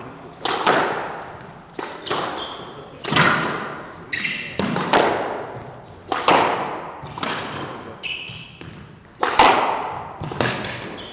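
Squash ball struck by racquets and smacking into the court walls in a rally: sharp, echoing hits about once a second, the loudest one near the end. Between the hits, court shoes squeak briefly on the wooden floor.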